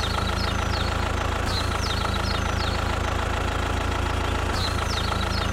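Engine running steadily at idle, with a continuous even hum. Short, high, falling bird chirps come in small groups every second or so over it.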